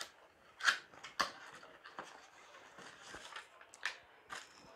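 Cardboard box flaps and a paper leaflet being handled: a handful of short, separate rustles and taps with quiet between them.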